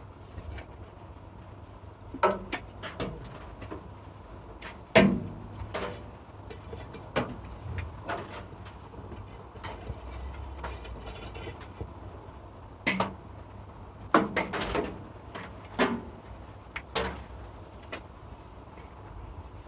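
Irregular sharp knocks and taps of hand work with tools and materials, about a dozen strikes spread unevenly, the loudest about five seconds in and a quick cluster near the three-quarter mark, over a steady low background.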